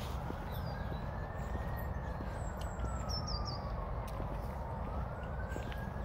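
Emergency-vehicle siren wailing, its pitch slowly rising and falling about once every four seconds, over a steady low rumble. Regular footsteps on the path and a bird chirping briefly about halfway through.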